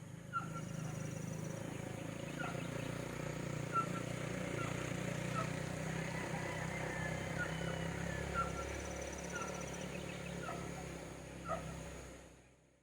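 Outdoor campsite ambience: short animal calls repeating about once a second over a steady high hum and low background noise, fading out near the end.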